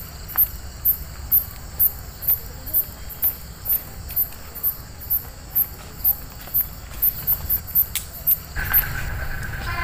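Crickets chirping, an even chirp about twice a second over a steady high insect hum. A lower steady buzz joins near the end.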